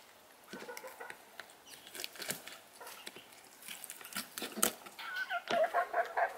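Kitchen knife cutting raw chicken on a wooden cutting board, with scattered sharp taps and knocks of the blade on the board. From about five seconds in, domestic chickens cluck in a quick run of short calls.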